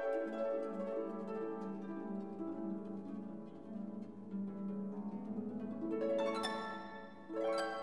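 Gentle instrumental background music with plucked, harp-like string notes.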